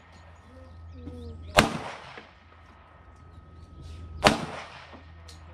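Two pistol shots about two and a half seconds apart, each sharp crack trailing off in a short echo.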